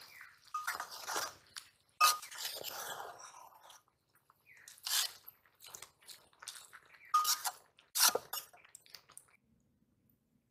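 Shredded raw cabbage being stirred with a steel spoon in a stainless steel bowl: crisp crunching and rustling in irregular bursts, with the spoon clinking against the metal bowl a few times.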